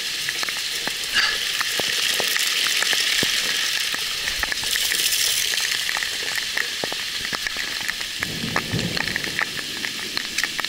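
Heavy rain falling steadily: a dense hiss scattered with many sharp ticks of drops striking close by.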